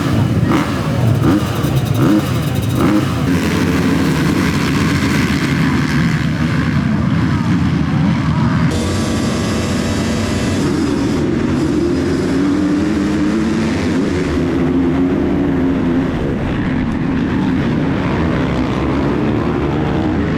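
Several motocross bikes revving hard and accelerating together, their engine notes rising and falling, as at a race start off the gate. The sound changes suddenly about nine seconds in.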